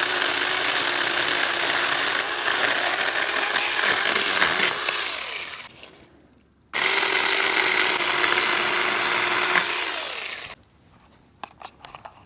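Saker mini 20-volt cordless chainsaw with a 4-inch bar running and cutting through a piece of firewood in two runs: a long run of about six seconds, a brief pause, then about four seconds more. The saw then stops, and a few small clicks and knocks follow near the end.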